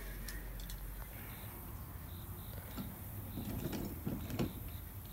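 Red plastic kids' wagon on replacement lawnmower wheels rolling over grass, rattling and clicking, loudest a little past the middle. Faint short high chirps repeat throughout.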